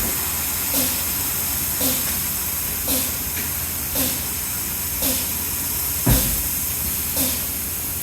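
A steady hiss with a soft knock about once a second, evenly spaced, and one heavier low thump about six seconds in.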